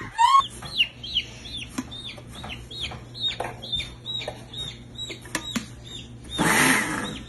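Baby chick peeping repeatedly, a steady run of short high cheeps that each drop in pitch, about three a second. A brief rustling burst comes about six and a half seconds in.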